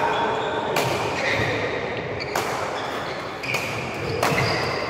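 Badminton doubles rally: rackets strike the shuttlecock four or five times, about a second apart, between short high squeaks of court shoes on the floor, echoing in a large sports hall.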